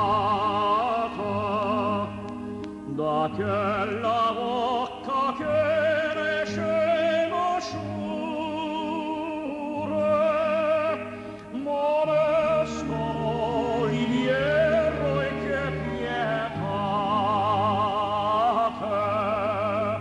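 Operatic singing with a wide vibrato on long held notes, over a steady orchestral accompaniment.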